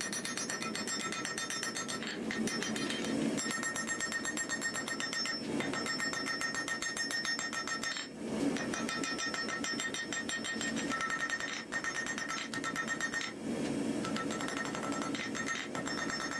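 Hammer striking hot steel on an anvil in quick, even blows with a ringing tone, in runs broken by short pauses, as the knife blade is forged.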